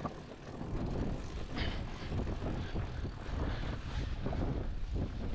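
Wind buffeting the microphone on the deck of a sailing yacht under way, a steady low rumble.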